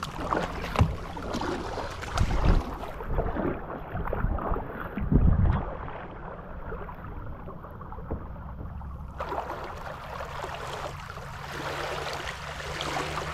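Kayak paddle strokes dipping and splashing in calm water, with scattered light knocks and two heavier low thumps in the first half.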